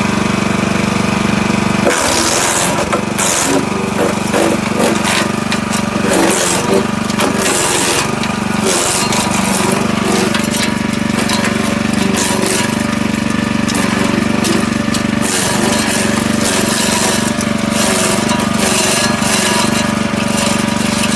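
Forest Master FM6DD wood chipper's 6 hp petrol engine running steadily; from about two seconds in, dense irregular cracking and snapping joins it as wood is fed through the cutters and chipped.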